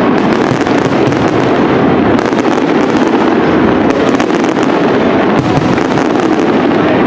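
Castillo fireworks display by Pirotecnia Global-Foc: aerial shells bursting in a dense, unbroken barrage of bangs and crackling.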